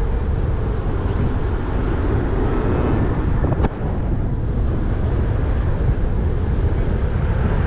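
A car being driven, with steady road and wind rumble heard from inside, and one brief click about three and a half seconds in.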